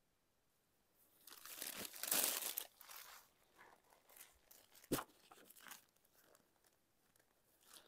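Rustling and crinkling as a saree is handled and unfolded, loudest about two seconds in, with one sharp click about five seconds in and fainter rustles after it.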